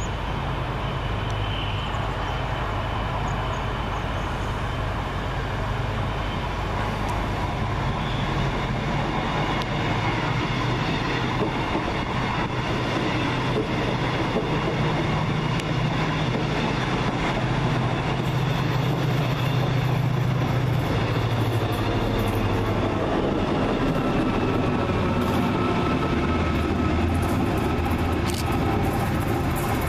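TransPennine Express Class 68 diesel-electric locomotive propelling a rake of coaches through the station. A steady diesel engine hum runs under wheel and rail noise, with the engine strongest about halfway through.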